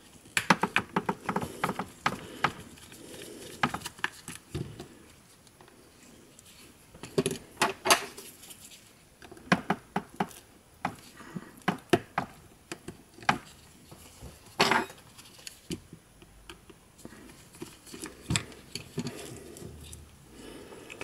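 Irregular small clicks, taps and rustles of gloved hands handling the plastic housing, wires and charging-socket board of a JBL Go 2 speaker, with a few sharper clicks about 8 seconds and 15 seconds in.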